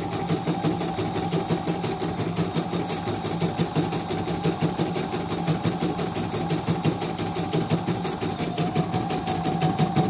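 CNY portable computerized embroidery machine stitching, its needle going up and down in a fast, even clatter over a steady motor hum. It is a test run with the covers off, during a repair for untidy stitching.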